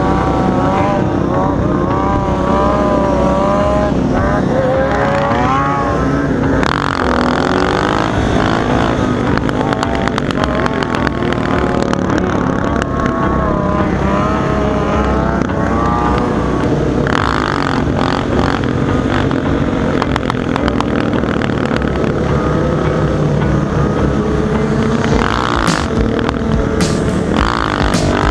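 Many motorcycle engines running together in a group ride, revving up and down so that their pitch keeps rising and falling, over a steady rush of wind noise. A few sharp buffets come near the end.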